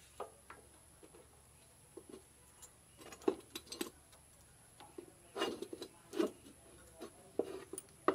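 Scattered light clicks and taps with some rubbing as a rubber V-belt is fitted by hand over a car alternator's pulley and a small engine's pulley.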